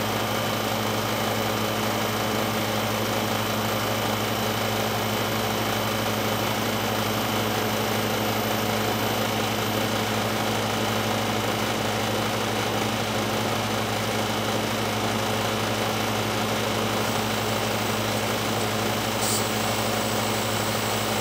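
Hermetic refrigeration compressor of a condensing unit running steadily on 240 volts, compressing air, with a constant low hum under an even hiss.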